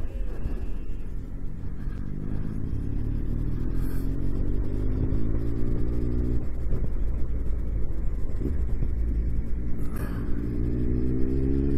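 Triumph Tiger 1200's three-cylinder motorcycle engine pulling up through the revs in a rising whine from about two seconds in, dropping back about six and a half seconds in, then rising again near the end, over a steady low rumble.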